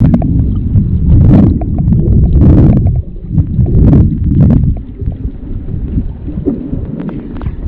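Underwater water noise: a loud, muffled low rumble of water moving around the camera, with a few brief louder rushes in the first half, easing to a lower rumble after about five seconds.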